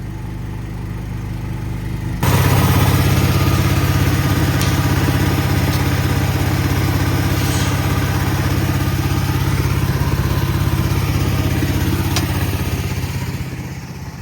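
An engine running steadily. About two seconds in, a loud, steady blast of compressed air from an air nozzle starts suddenly, blowing soybean dust off a combine, and tapers off near the end.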